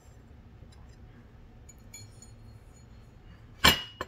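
One light hammer tap on a metal ring seated on a ring mandrel near the end, a sharp strike with a short metallic ring, preceded by a few faint small clinks. The taps round out the soldered ring, which has been softened by annealing.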